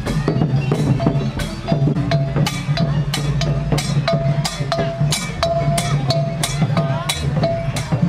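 Khmer procession drum music: long drums beating a steady rhythm under sharp clicking percussion, about two to three strokes a second, with a short high note repeating about twice a second.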